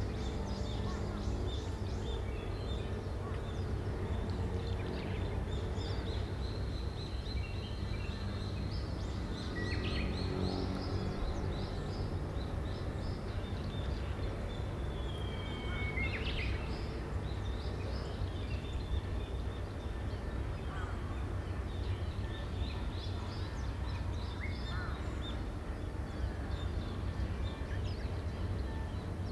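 Outdoor harbour ambience: a steady low rumble with scattered bird chirps and short whistles, one with a falling pitch about 16 seconds in.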